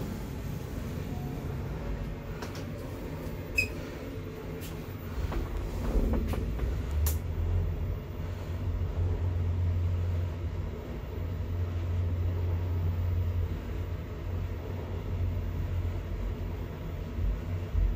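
Elevator car travelling in its shaft: a low, steady rumble that grows stronger about six seconds in, with a few light clicks before that as the car gets under way.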